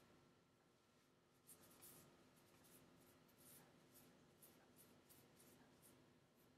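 Faint soft rustles of hands working aloe vera gel through wet, curly hair, about two a second from a second and a half in.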